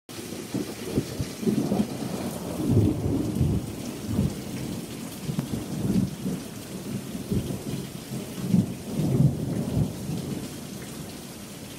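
Thunderstorm: rain falling steadily with low, rolling thunder that swells and fades again and again.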